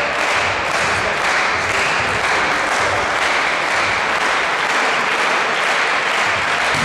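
Volleyball spectators in the hall clapping in a steady rhythm over continuous crowd noise.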